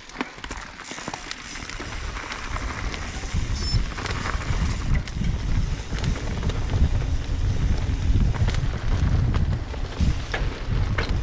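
Mountain bike riding down a leaf-covered dirt singletrack: wind buffeting the helmet camera's microphone, with the rumble of the tyres and short knocks and rattles from the bike over the rough ground. It grows louder over the first few seconds as the bike picks up speed, then stays loud.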